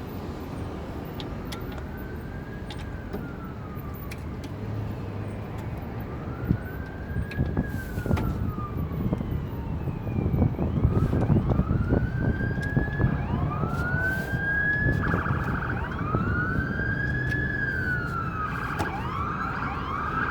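Emergency-vehicle sirens wailing: slow rises and falls in pitch repeating every few seconds. From about halfway several sirens overlap and grow louder, over a steady low rumble.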